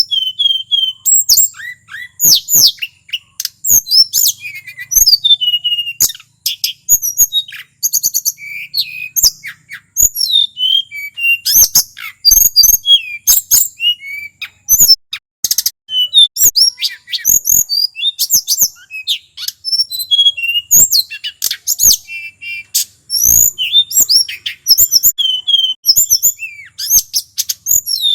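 Male tledekan gunung singing a long, rapid, varied song of high chirps, slurred whistles and trills, with sharp clicks among the notes.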